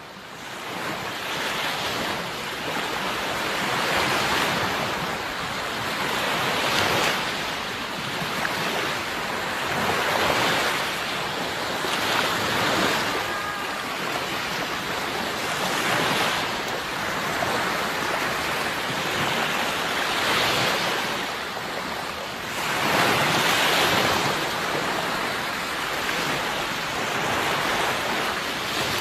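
Sea waves breaking and washing in, a steady rush that swells with each wave every few seconds. It fades in over the first couple of seconds.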